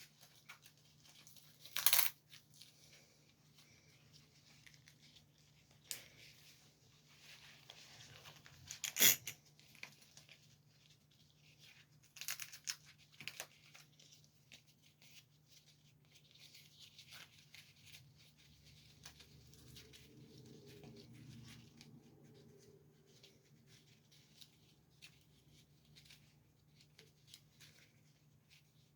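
Nylon webbing straps and buckles of a rescue harness being pulled and adjusted: scattered rustling and scraping, with two sharper clacks about 2 and 9 seconds in.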